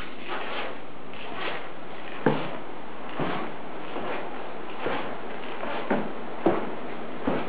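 Slow footsteps on a floor, a few soft knocks roughly a second apart, the sharpest about two seconds in and near the end, over a steady hiss.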